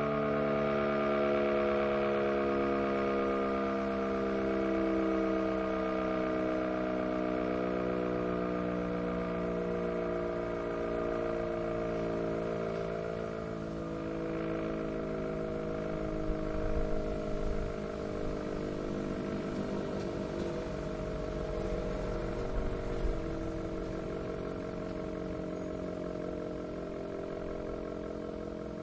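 ACA Banshee 115 outdoor warning siren winding down: a many-toned wail slowly falling in pitch and fading, swelling and dipping at a regular pace. A low rumble comes in about halfway through.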